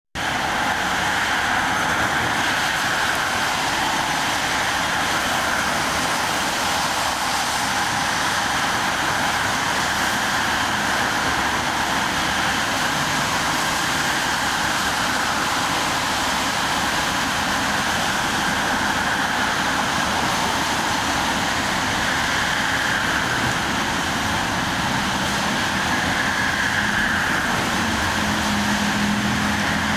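Steady road traffic on a wet street, with cars passing and the hiss of tyres on wet asphalt. A Fukui Railway 880-series tram draws closer, and a low steady hum joins in near the end.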